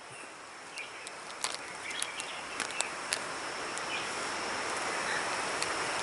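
Irregular clicks of loose stream-bank stones knocking underfoot while walking, over the steady wash of a shallow stream and a constant high insect hum.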